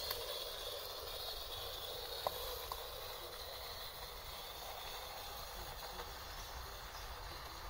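Small live-steam garden-railway locomotive running past with a steady hiss of steam. There are two faint clicks about two and a half seconds in.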